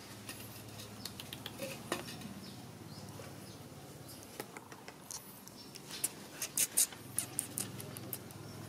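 Light scuffles and small clicks of baby monkeys and a dog tussling on dirt, scattered throughout, with a quick run of sharper, louder clicks about six to seven seconds in.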